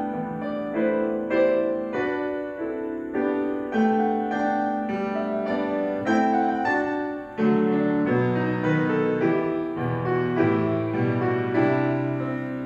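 Grand piano played solo: a slow piece in chords, each struck and left to ring, with a brief lift about seven seconds in before a fresh chord and lower bass notes joining.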